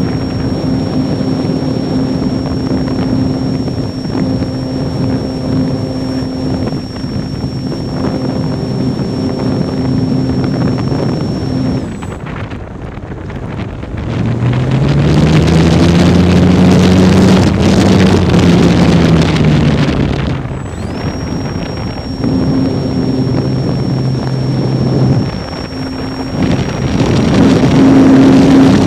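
Electric motor and propeller of a ParkZone T-28 radio-controlled warbird in flight, heard from a wing-mounted camera: a steady high motor whine and propeller buzz with wind rushing over the microphone. About twelve seconds in the motor whine cuts out. A louder wind rush with a drone that rises and then falls takes over for several seconds, and the whine comes back about twenty seconds in.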